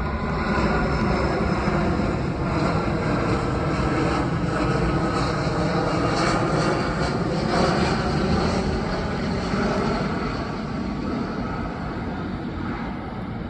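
A United Airlines Boeing 757 passing close overhead: a steady jet roar from its twin turbofan engines with a whine of engine tones in it, easing off slightly near the end as it moves away.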